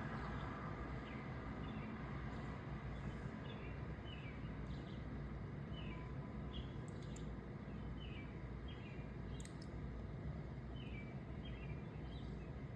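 A bird chirping: short, high, downward-sliding calls repeating about once or twice a second, over a steady low outdoor rumble.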